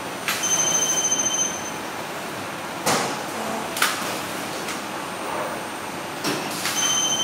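Metal sheet trays knocking and scraping as they are slid in and out of a steel rack. A high electronic beep sounds twice, a second or so each, near the start and near the end, over steady machinery noise.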